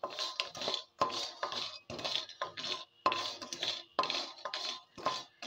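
A spatula scraping and knocking around a kadai, about two strokes a second, with a faint ringing from the pan. It is stirring lentil dumplings (bori) in a little cold oil before the gas is lit, so there is no sizzle.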